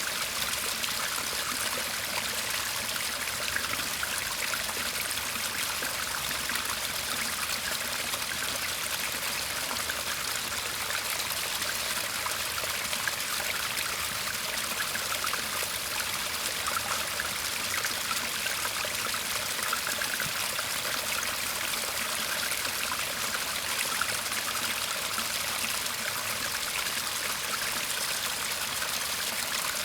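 Shallow garden stream (seseragi) murmuring and trickling steadily.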